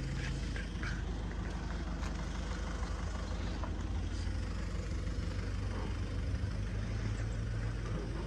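An engine idling steadily, a low continuous hum.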